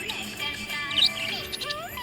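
Budgerigar giving short, high chirps about a second in, over background music with held tones and gliding notes.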